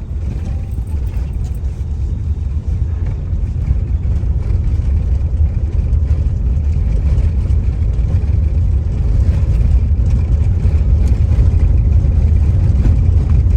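Steady low rumble of a moving car heard from inside the cabin: engine and road noise, growing slightly louder toward the end.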